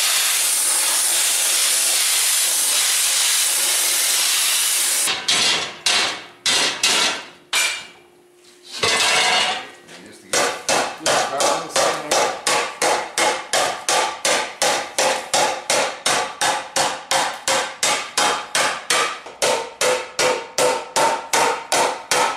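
A cutting torch hisses steadily through steel plate for about five seconds. After a few scattered blows and a short pause, a hand hammer strikes a hot steel disc over a wooden stump in a steady rhythm of about two and a half blows a second, the thin plate ringing with each blow as it is dished into a pan.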